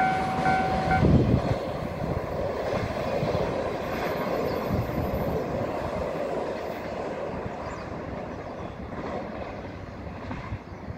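Freight train's container wagons rolling away over the rails, their rumble slowly fading into the distance. A pulsing electronic warning tone sounds for the first second and then stops.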